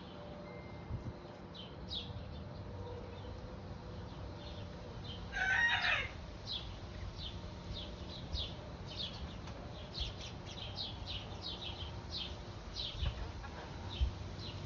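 Young Silkie and Polish chickens calling: many short, high, falling chirps, coming more often in the second half, and one louder, harsher call lasting under a second about five and a half seconds in.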